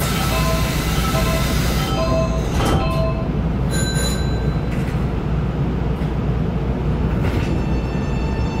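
Nankai 8300-series electric train at a station stop: a hiss of air and a few short tones, then steady motor tones start near the end as it begins to pull away.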